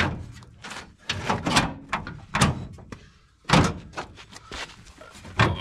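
Removable sheet-steel front end of a Citroën AX being pushed and knocked into place against the car's body: a string of sharp metallic clunks and rattles, the loudest about three and a half seconds in.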